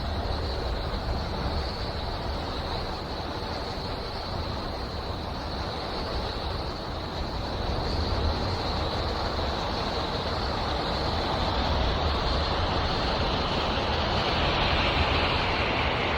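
NASA spacecraft radio and plasma-wave recordings converted into sound: a steady rushing hiss over a low rumble, with a thin high whine held throughout, swelling slightly near the end.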